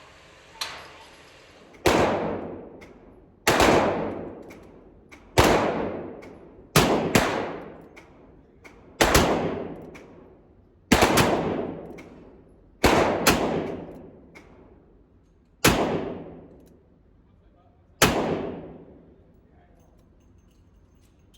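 A revolver fired about a dozen times in double action, at an uneven pace of one to two seconds between shots with a few quick pairs, each report ringing out and fading. A fainter shot sounds just after the start.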